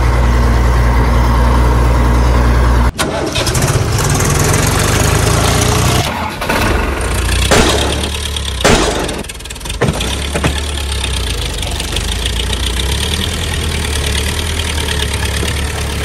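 Tractor engine running at a steady idle, its note changing abruptly about 3 and 6 seconds in, with a few sharp knocks between about 7 and 10 seconds. The engine sound is laid over toy tractor footage.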